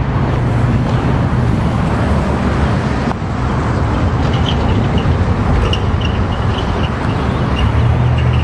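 Steady rumble of nearby road traffic. A few short, faint high chirps come in during the second half.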